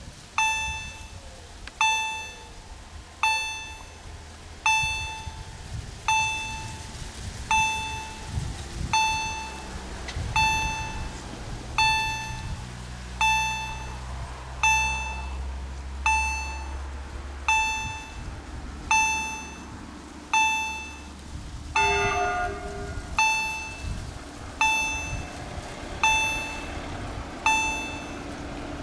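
Level-crossing warning bell striking steadily, about one ringing strike every second and a half, each dying away before the next: the crossing is closed for an approaching train.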